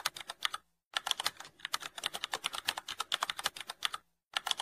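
Rapid computer-keyboard typing clicks, used as a sound effect for text being typed out on screen. The typing breaks off briefly just under a second in and again near the end.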